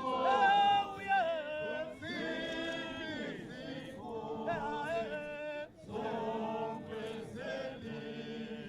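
A choir singing without instruments, in long held phrases with short breaks between them.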